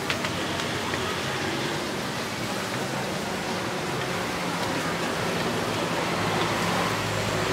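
Steady sizzling hiss of whole quail roasting on rotating spits over a charcoal grill, with a faint low hum beneath.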